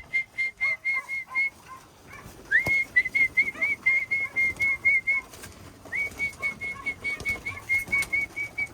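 A person whistling to call pigeons back into the loft: rapid, repeated short whistle notes, about four or five a second, in three runs with short breaks, the later runs each opening with a rising note.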